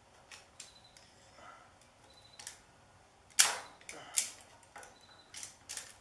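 Screwdriver prying and picking at the torn metal casing of an old tine-shaft oil seal in a tiller's tine housing. It makes irregular sharp metal clicks and scrapes, the loudest a little over three seconds in, then a quick cluster near the end.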